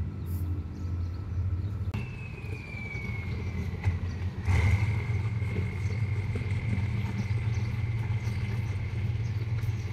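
Thai diesel railcar approaching on the yard tracks, its engine running low and steady. About two seconds in, a long, thin, high squeal starts and slides slightly down in pitch. It grows louder about halfway through and holds to the end.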